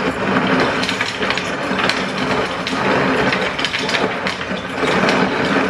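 Refrigerator's through-the-door ice dispenser running, with a steady clatter of ice dropping out over the hum of its motor.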